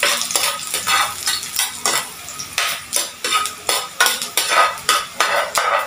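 Chopped garlic sizzling in hot oil in a frying pan while a spatula stirs it, scraping the pan bottom about three times a second.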